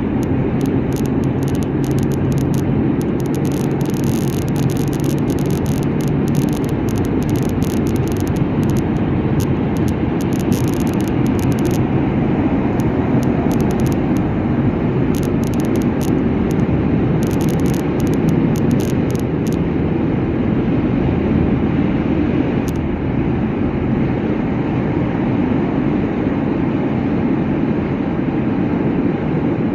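Steady road noise of a moving vehicle, mostly a low rumble, with light crackling in the first twenty seconds or so.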